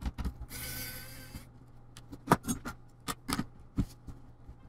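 A short whirring hiss as a small laptop screw is backed out with a slim pen-style screwdriver, then several light clicks and taps as the screw and the tool are handled and set down.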